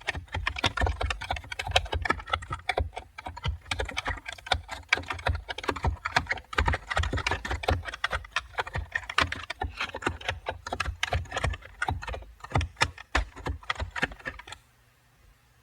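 Steady, rapid typing on a computer keyboard, with keystrokes in a dense clatter. It stops about a second before the end.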